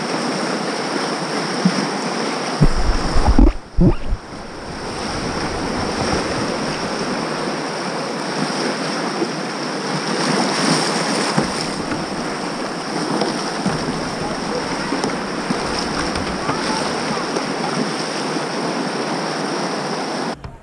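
Whitewater rapid rushing and churning in a steady roar, heard from a kayak in the rapid. About three seconds in there is a second or so of low rumbling buffeting on the microphone.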